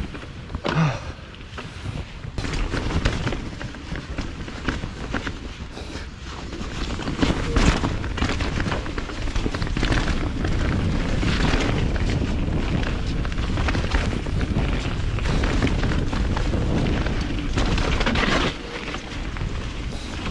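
Mountain bike riding fast down a dirt singletrack: wind rumble on the action camera's microphone over the noise of tyres on dirt and roots, with frequent clunks and rattles from the bike over bumps. It gets louder as speed builds partway through.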